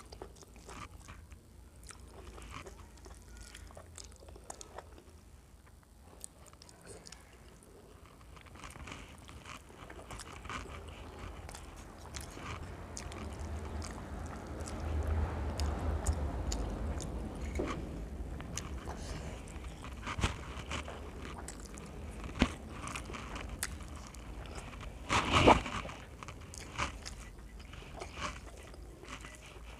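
Close-up chewing and mouth sounds of a person eating rice by hand, with small clicks of fingers mixing food on a steel plate. There is a sharper knock near the end.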